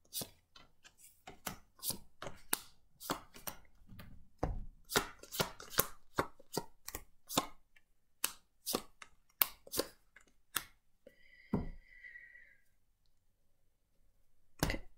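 Tarot cards being dealt off the deck and laid down on the table: a quick run of sharp card snaps and taps, several a second, that thins out in the second half. A brief high-pitched tone sounds about eleven seconds in, then it is mostly quiet until one last card slap near the end.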